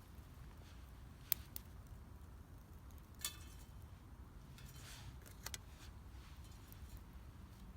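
Wood fire burning quietly, with a few scattered sharp crackles and pops over a low steady rumble.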